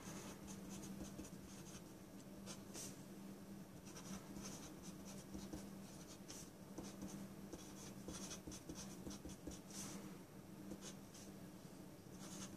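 Pencil writing on paper: faint scratching in short, irregular strokes as an equation is written out.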